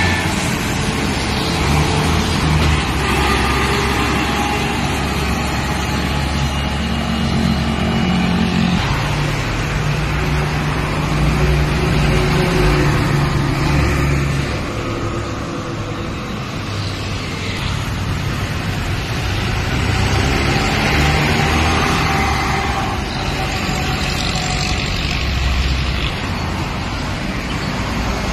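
Busy road traffic with heavy dump trucks and cars driving past close by: the steady run of big diesel truck engines over tyre and road noise.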